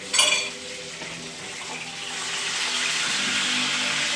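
Tilapia frying in oil in a pan, a steady sizzle that grows louder about two seconds in. A brief clatter just after the start, likely the spatula against the pan as the fish is checked.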